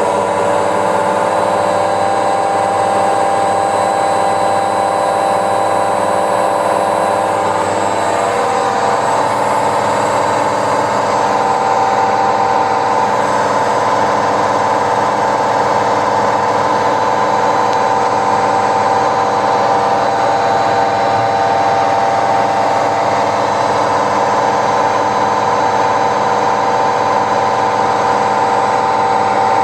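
Samsung washing machine running with a deafening, steady mechanical whine made of several held tones; the pitch shifts about eight seconds in, then holds. It is the abnormal noise of a faulty machine.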